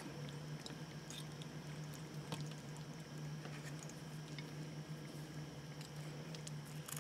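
Knife and fork cutting into a roast chicken with crispy skin in a metal sheet pan: faint scattered clicks and soft squelching, over a steady low hum.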